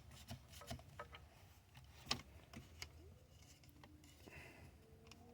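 Faint, scattered clicks and light taps of hands handling plastic steering-column trim and wiring, with one sharper click about two seconds in.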